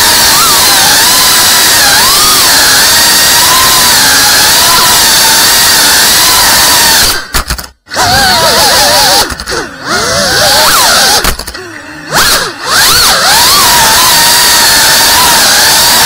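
FPV racing quadcopter's brushless motors and propellers whining, the pitch wavering up and down with the throttle. About seven and a half seconds in the sound cuts out almost completely for a moment, and from about nine to thirteen seconds it drops and swoops in pitch several times as the throttle is chopped and punched through flips.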